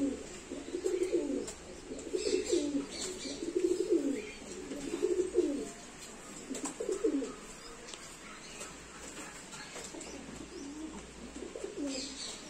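Domestic pigeons cooing, several low coos following one another closely through the first half, then fewer and fainter.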